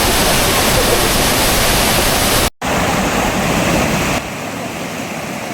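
Waterfall rushing with steady, loud white noise. The sound cuts out for a split second about two and a half seconds in, then returns, and drops somewhat in level about four seconds in.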